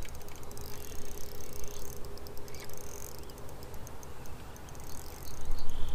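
Spinning fishing reel ticking rapidly as a hooked bass is reeled in, over wind rumble on the microphone. A faint steady hum fades out about halfway through.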